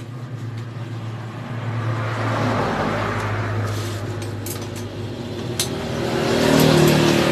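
A motor vehicle engine running, growing louder with its pitch rising about six seconds in, with a few sharp metal clicks around the middle.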